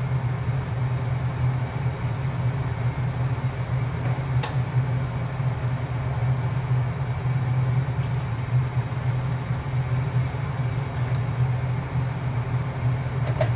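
Steady low hum of a kitchen fan running, with one light click about four and a half seconds in.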